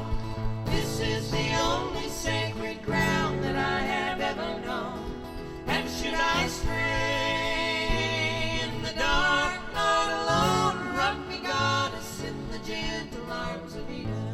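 Choir singing a folk song in harmony, with instrumental accompaniment.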